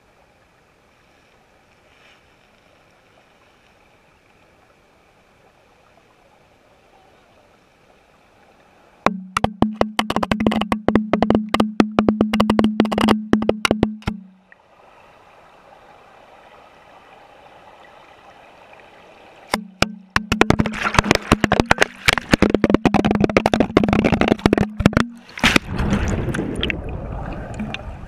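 Underwater sound from inside a GoPro's waterproof housing as the river carries it. A faint muffled water hush gives way, about nine seconds in, to loud rapid knocking and rattling over a steady low hum as the housing tumbles in fast current. The knocking eases for a few seconds of rushing water, then returns more heavily and ends in a dense rush of turbulent water.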